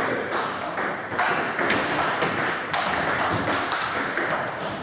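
Table tennis rally: the ball clicking off the paddles and bouncing on the table in a quick back-and-forth, about two sharp ticks a second.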